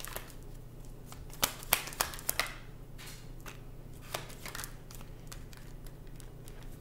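A deck of tarot cards being shuffled by hand: irregular soft clicks and slaps of the cards, busiest from about one and a half to two and a half seconds in.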